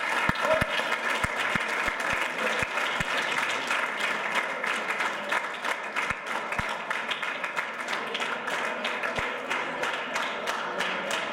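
Applause from a roomful of schoolchildren, many hands clapping at once at a steady level.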